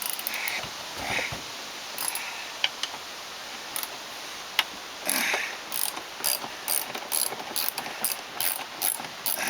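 Hand ratchet wrench clicking as a bolt is worked loose: scattered clicks at first, then a steady run of about four or five clicks a second in the second half.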